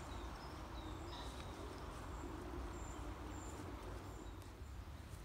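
Outdoor ambience: a steady low rumble with a few faint, short, high-pitched bird chirps scattered through it.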